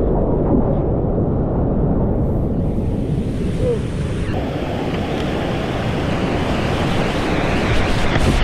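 River whitewater rushing and churning around a kayak running rapids, a loud steady roar. Muffled at first, turning brighter about four seconds in.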